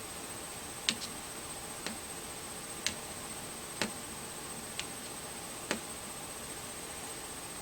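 A pointer tapping on a wall chart, six sharp taps about a second apart that stop near the end, over a faint steady high-pitched whine.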